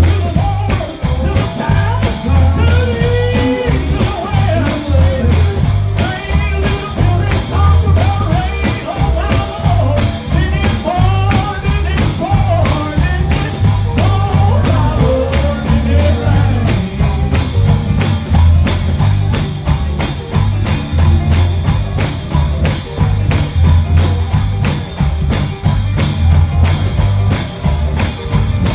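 A live band with drums and heavy bass plays an upbeat gospel song. A voice sings over roughly the first half, then the band plays on alone.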